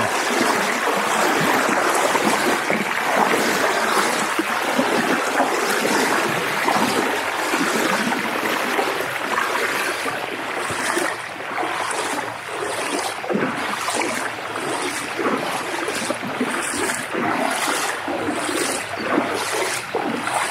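Fast-flowing, rising river water rushing close by. From about halfway, regular splashing strides can be heard, a little more than one a second, from someone wading through it.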